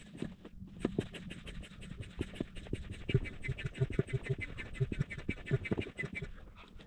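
Inflatable stand-up paddleboard being pumped up with a hand pump: a quick, regular series of pump strokes, each a short puff of air with a low thud.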